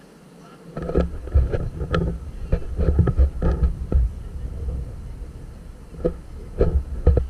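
Irregular low rumbling gusts and thumps starting about a second in, typical of wind buffeting a camera microphone on the deck of a moving boat.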